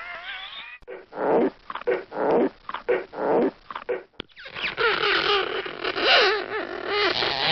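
Cartoon comedy sound effect of growly, animal-like vocal noises: a short wavering squeal, then a run of separate chomping pulses about twice a second, then a long warbling, wavering sound from about halfway in.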